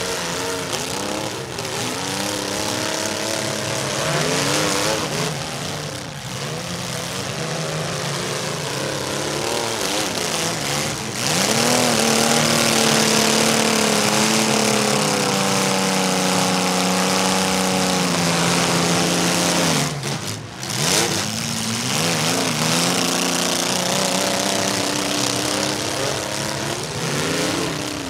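Demolition derby compact cars' engines revving and running hard, several at once, with pitches rising and falling. From about 11 seconds one engine is held at steady high revs for about nine seconds, then drops off abruptly, followed by a sharp knock.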